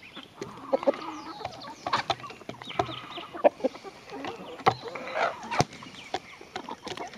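Chickens clucking while a White Rock chicken pecks corn off a wooden board, its beak tapping sharply on the wood many times.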